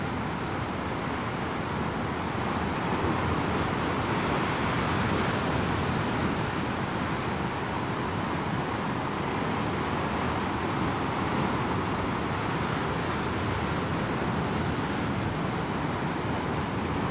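Rough winter surf of the Sea of Japan breaking over a rocky shore: a continuous rush of white water that swells a little about three seconds in.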